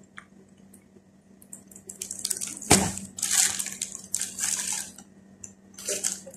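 Clear plastic packaging crinkling and rustling in bursts as wrapped items are handled, starting about two seconds in, with one sharp tap or click a little later.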